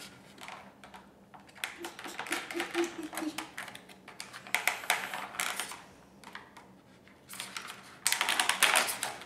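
Clear plastic blister packaging crinkling and crackling in quick irregular clicks as a toy figure is handled and worked out of it, loudest near the end.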